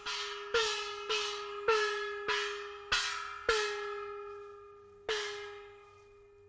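Hand-held metal gong struck with a stick, about twice a second, each stroke ringing on with a steady tone and shimmering overtones; after a pause one last stroke about five seconds in rings away. The gong is beaten as a noise alarm to scare off a tiger.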